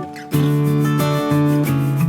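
Background music played on acoustic guitar, plucked notes in a steady pattern. It dips briefly at the start and comes back about a third of a second in.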